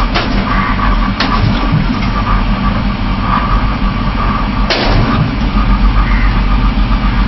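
FDM 3D printer running mid-print: its stepper motors drive the moving print head with a whine that comes and goes, over a steady hum from the motors and fans, with a sharp tick about five seconds in.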